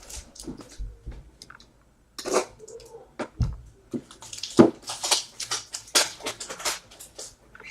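Trading cards and their packaging being handled: irregular rustling and scraping, with a few sharp taps and clicks.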